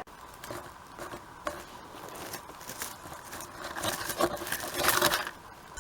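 Rustling and crinkling of handling, with scattered light clicks and scrapes, growing louder about four to five seconds in, as the shot squirrel is put in a bag.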